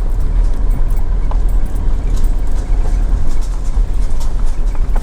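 Steady low rumble of a vehicle driving slowly along a dirt track, heard from inside the cabin, with a few faint ticks over it.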